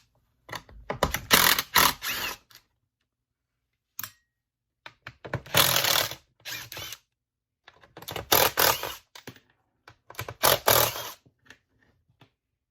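Cordless impact driver backing out the screws of a leaf blower's back cover, rattling in about four short bursts with pauses between.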